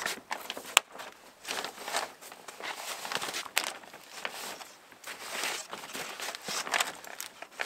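Clear plastic window sheeting rustling and crinkling as hands press and smooth it over a log window frame, in irregular swishes, with a couple of sharp clicks.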